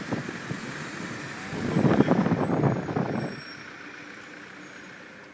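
Road and traffic noise from a car driving down a city street, swelling loudly for about a second and a half in the middle, then settling to a quieter steady hum. A faint high whine sounds over the first few seconds.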